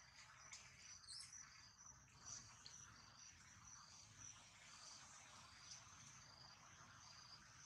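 Faint insect chirping: short high-pitched pulses repeating steadily at two alternating pitches, with one brief rising chirp about a second in.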